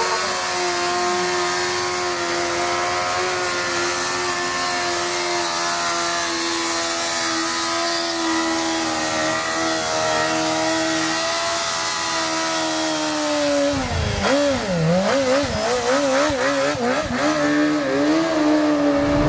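Sport motorcycle engine held at high, steady revs during a burnout, the rear tyre spinning on the pavement. Over the last five seconds the revs dip and surge again and again as the throttle is worked.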